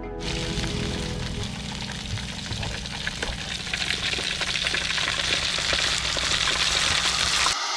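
Campfire burning with a steady dense crackle and frequent small pops of burning wood.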